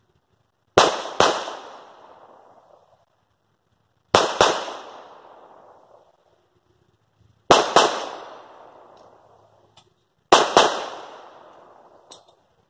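Smith & Wesson M&P Shield EZ .380 ACP pistol fired in four double taps, eight shots in all, the pairs about three seconds apart, each report trailing off in a brief echo.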